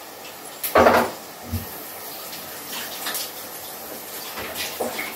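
Water running from a kitchen tap into a sink, with a loud clatter of a vessel about a second in and a smaller knock shortly after.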